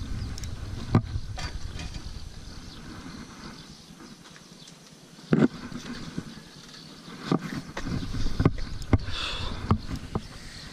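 Wind rumbling on the microphone for the first few seconds, then scattered sharp knocks and rubbing: handling noise from a body-worn camera brushing against a metal railing.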